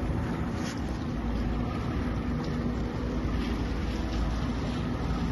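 Steady low rumble of a small open fishing boat at sea, with wind and water noise and a few faint clicks.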